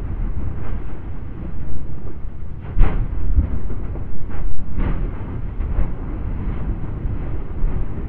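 Lava fountain in an erupting volcanic crater: a continuous deep, thunderous rumble with irregular sharp bursts as the lava spatters and splashes, the loudest about three and five seconds in.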